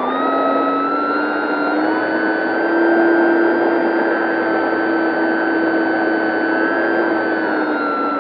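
Dynam 3720-650kV brushless electric motor and propeller of an RC warbird, heard from an onboard camera in flight: a steady whine over rushing air. The pitch rises as the throttle opens, climbs again about two seconds in, holds, and eases back down near the end.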